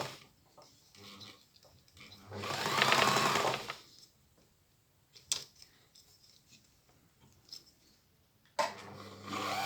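Victoria Lady 6800 F sewing machine's electric motor run in short spurts on the foot pedal while the repaired handwheel and bobbin winder are tested. A run of about a second and a half speeds up and slows down, a couple of sharp clicks follow, and the motor starts again near the end.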